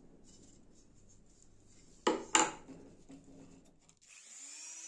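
Two sharp clinks about two seconds in, then near the end a Dremel 3000 rotary tool's motor starting up, its whine rising in pitch as it spins up to speed.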